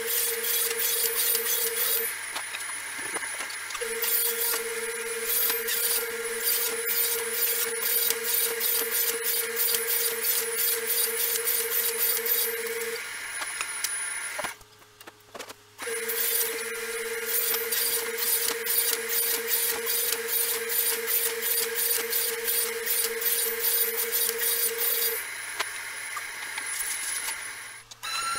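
Ridgid R4520 table saw running and rip-cutting plywood: a steady blade whine with the rough noise of the cut. There are a few short dips between passes and a moment of near silence about halfway.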